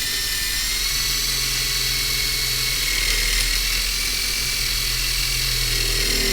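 Electric drill running steadily at speed with a high whine, boring out the head of a tamper-proof screw in the heater's housing.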